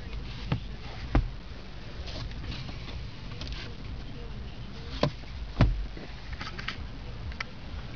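A handful of sharp clicks and knocks inside a car cabin as the sun visors and their lighted vanity mirrors are handled, over a low steady rumble.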